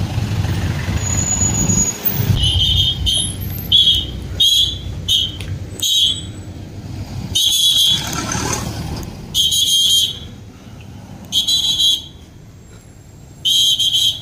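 Traffic police whistle blown in about nine shrill blasts, several short ones in quick succession and then longer blasts a second or two apart. Slow-moving car and truck engines rumble underneath, loudest in the first couple of seconds.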